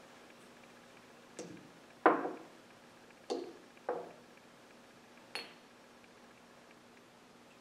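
Glass cruets clinking against a metal chalice and the altar as the wine is made ready in the chalice: five short clinks with brief ringing, the loudest about two seconds in, over a faint steady hum.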